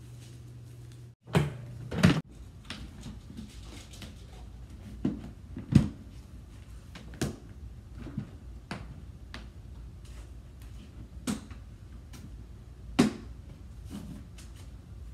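Irregular knocks and clacks of a white plastic box being handled by hand, with a few sharp louder knocks (two close together about a second in, others near the middle and near the end) and lighter ticks and rustles between.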